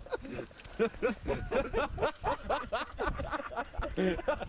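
People laughing and chuckling, mixed with a little talk.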